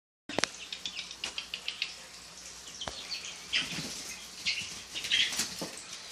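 Young chickens peeping in short, high chirps, several in quick succession, with bursts of wing flapping as a chick flutters up.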